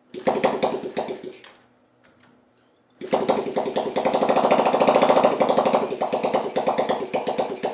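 Honda C70 Super Cub's 72 cc single-cylinder four-stroke engine, run on the bench with a little choke just after its first start: it fires and runs for about a second and a half, dies out, then is kicked again and catches about three seconds in. It runs on steadily, louder for a couple of seconds before easing back.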